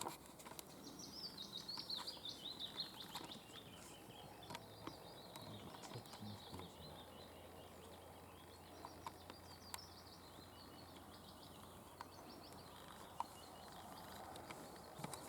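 Faint songbird song: quick runs of high notes that fall in pitch, two phrases in the first half and a weaker one near the end, over a soft outdoor background with a few small clicks.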